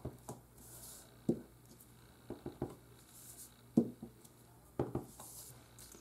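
Clear stamp on an acrylic block being tapped onto an ink pad and pressed onto cardstock: a handful of light, irregular taps and knocks, with soft paper rustling between them.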